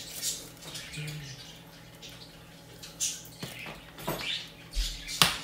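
A plastic lid being pressed and snapped onto a disposable to-go cup: plastic crinkling with several sharp clicks, the loudest one near the end.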